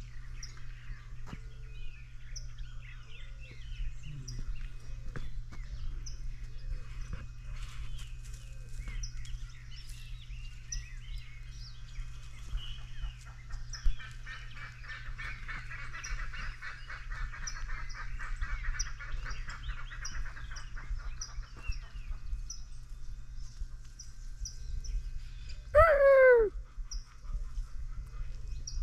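Farmyard and wild birds calling: repeated short high chirps, a dense twittering chatter in the middle, and one loud honking call that falls in pitch near the end, over a steady low hum.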